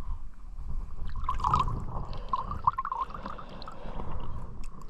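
River water running, with a few brief splashy bursts about one and a half and two and a half seconds in.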